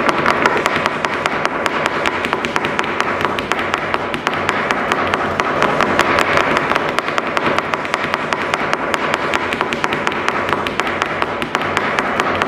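Fast flamenco footwork: shoes striking the floor in a dense, rapid run of taps.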